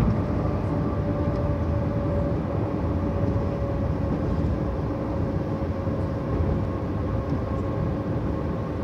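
Car driving, heard from inside the cabin: a steady rumble of road and tyre noise, with a steady whine that drifts slightly lower in pitch.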